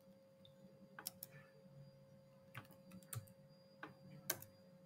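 Slow, uneven keystrokes on a computer keyboard typing out a terminal command: about seven separate clicks, the loudest near the end, over a faint steady hum.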